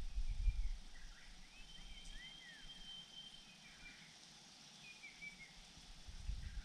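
Small birds chirping: thin, high, arching notes and one longer steady whistle about two seconds in, with a low rumble in the first second and again near the end.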